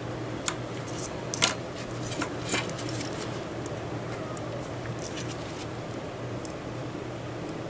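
Small clicks and taps from a tool and fingers handling a small plastic 3D-printer cooling fan during reassembly, with three sharper clicks in the first three seconds and only faint ticks after. A low steady hum runs underneath.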